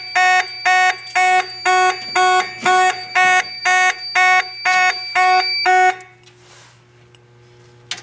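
Simplex 2901-9838 fire alarm horn sounding a loud, buzzy tone in rapid pulses, about two a second: the panel is in alarm after zone one's pull station was pulled. The horn cuts off abruptly about six seconds in, leaving a faint hum.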